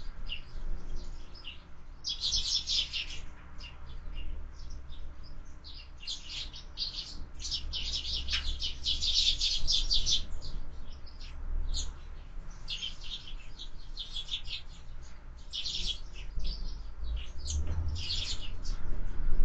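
A group of sparrows chirping and chattering at a window feeder, with dense runs of quick, high chirps coming and going, over a low rumble of wind on the microphone.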